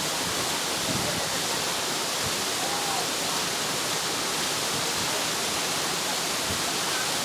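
A waterfall rushing steadily.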